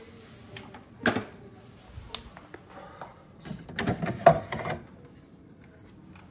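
Knocks and clatter of coffee-machine parts being handled: a sharp knock about a second in, a few light clicks, then a burst of clattering around four seconds in.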